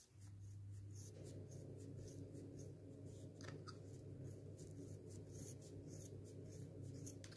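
Scissors snipping through thickly wound yarn on a pompom maker, short crisp cuts coming about two to three a second. A steady low hum runs underneath.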